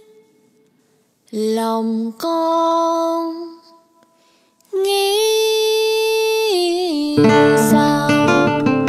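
A woman singing long, held notes on her own, with short silent gaps between phrases; about seven seconds in, instrumental accompaniment comes in beneath her voice.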